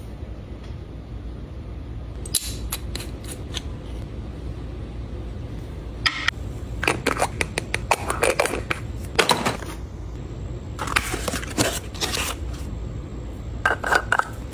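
Groups of light clicks, taps and scrapes as small cosmetic jars are handled and their screw-top lids are gripped and turned, over a steady low background hum.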